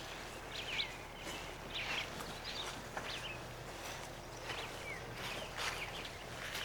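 Birds chirping repeatedly with short up-and-down calls, over the soft footsteps of people walking a trail.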